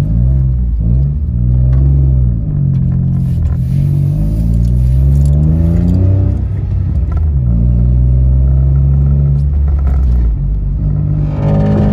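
Citroën C1 driven with the dB-killer baffle removed from its exhaust, heard from inside the cabin. The engine and exhaust note is loud, rising as the car accelerates and dropping at each gear change, with a short lull about six seconds in.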